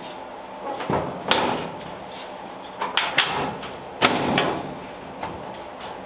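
The steel hood of a 1938 Ford is lowered and pushed down onto a home-made latch built from VW parts: three groups of sharp metal clunks and bangs, each ringing briefly, about a second, three seconds and four seconds in.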